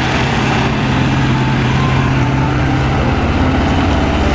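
Large mining truck's engine running steadily with a low, even drone.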